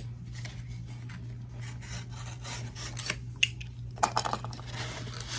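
Hands handling packaging during an unboxing: small scrapes, rubs and light clicks, with a cluster of sharper clicks about four seconds in. A steady low hum runs underneath.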